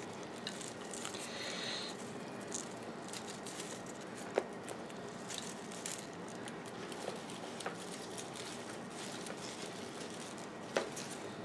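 Hands working a boat lily division into potting soil in a plastic pot: soft rustling with scattered light clicks, a sharper one about four seconds in and another near the end.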